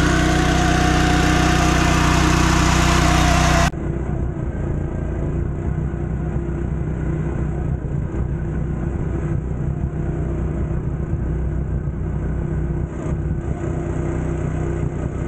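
Go-kart's 208cc single-cylinder engine running steadily as the kart is driven through mud. About four seconds in, the sound drops and turns duller, and the engine goes on running.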